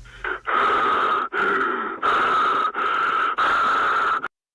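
Heavy, harsh breathing from the horror cat character: about five loud rasping breaths in a row, cutting off suddenly near the end.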